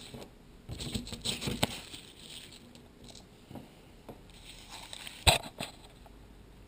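Light handling noise: scattered rustles and small clicks as things are moved about, with one sharp click about five seconds in.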